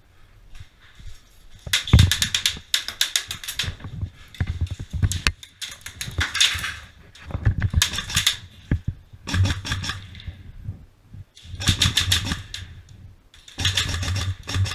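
Airsoft electric gun, a Scorpion EVO A1 with a foam-filled suppressor, firing about eight short full-auto bursts starting about two seconds in. Each burst is a rapid string of clicks.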